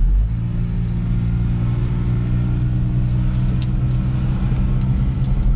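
A motor vehicle engine running with a steady hum over a low rumble. Its pitch rises briefly just after the start, then holds level.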